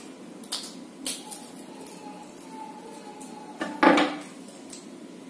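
Hands handling the small parts of a Boya BY-M1 lavalier microphone: light clicks about half a second and a second in, and a louder clatter a little before four seconds in, over a steady low background hum.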